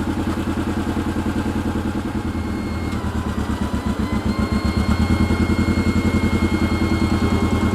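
Kawasaki Mule Pro FX1000 side-by-side engine idling steadily, with a thin, steady high whine joining about three seconds in.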